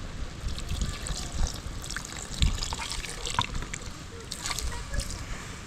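Water trickling and splashing, with scattered small clicks and a few low knocks.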